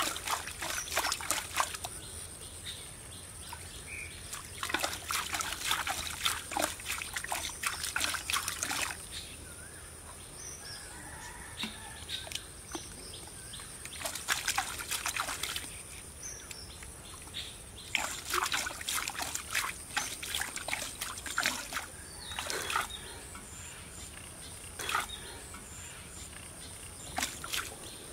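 Hands digging and scooping wet mud and water out of a hole in a pond bank: bursts of squelching and splashing with short pauses between.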